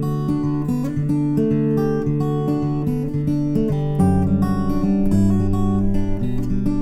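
Background music: acoustic guitar strumming and picking, with a deeper bass part coming in about four seconds in.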